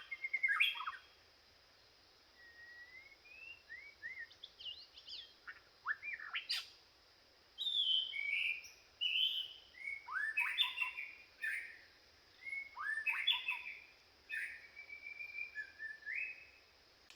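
White-rumped shama singing: a run of varied, melodious whistled phrases with quick rising and falling slides, in short bursts separated by brief pauses, over a steady faint high hiss.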